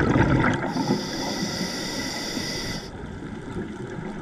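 Scuba regulator heard underwater: the rumble of exhaled bubbles dies away in the first half second, then a steady high hiss of the diver breathing in through the regulator lasts about two seconds and cuts off sharply.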